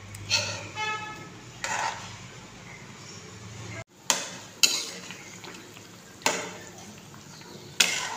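Steel spatula stirring a pan of bubbling curry, scraping and knocking against the metal pan about six times.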